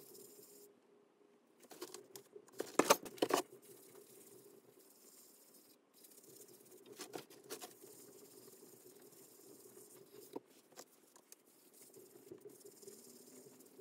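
Cloth rubbing gold embellishing wax into the grain of an ebonized ash platter: soft rustling strokes, loudest in a cluster about three seconds in and again near seven seconds, over a faint steady hum.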